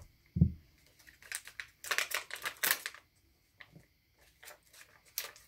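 A dull thump about half a second in, then crinkling and crackling of a plastic sheet of rhinestone stickers as the stones are peeled off it, in short bursts with small ticks between.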